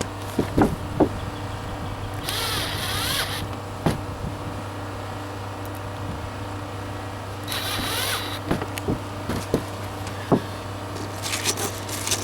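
Power drill driving self-tapping screws, in two short whirring runs about two and seven and a half seconds in, with clicks and knocks of handling between, over a steady low hum.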